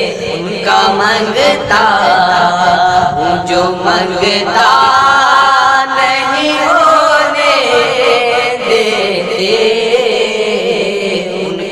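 Young men singing an Urdu naat, a devotional song in praise of the Prophet, in long drawn-out notes that rise and fall.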